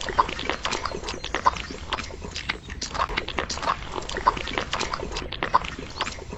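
A small metal spoon scraping, pressing and smoothing wet cement mortar: a quick, irregular run of wet clicks and squelches.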